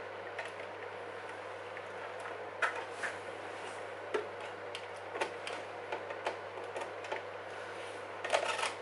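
Scattered light clicks and taps of plastic parts being handled as the cab of an RC model truck is pushed back onto its chassis and loose wiring is worked into place, with a few quick clicks near the end. A steady low hum runs underneath.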